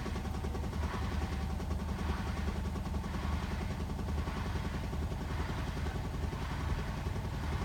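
Hotpoint WMFUG 942 washing machine running, with a steady motor hum and a soft swish about once a second as the drum turns.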